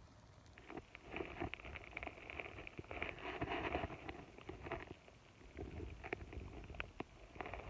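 Hamster nibbling and crunching peanuts: quick, irregular small cracks and rustles, busiest about a second in and from about three to four seconds in.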